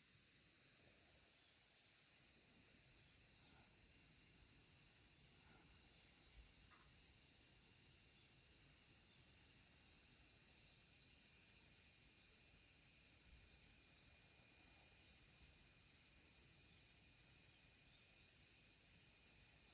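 A faint, steady chorus of insects, most likely crickets, trilling high and unbroken.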